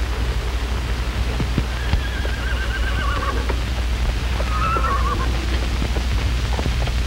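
A horse whinnies twice, a longer wavering call about two seconds in and a shorter one near five seconds. Both sit over the steady low hum and scattered crackle of an old film soundtrack.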